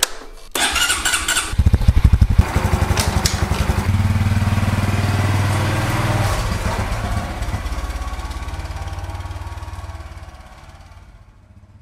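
Motorcycle started with its ignition key: a click, a brief whir of the starter, then the engine catches about a second and a half in with a few rapid pulses. It settles into a steady run and fades out slowly as the bike rides away.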